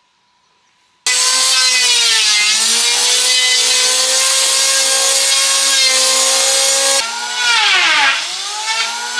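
Electric woodworking power tool cutting wood, starting suddenly about a second in. Its motor whine runs steady, with the pitch sagging and recovering twice as it cuts.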